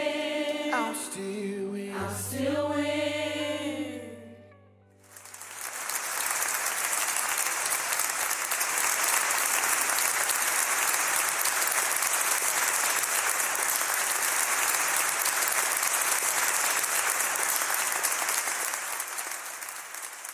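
Gospel vocal group, a lead singer backed by a small choir, holding the final chord, which fades out about four seconds in. From about five seconds on, steady applause.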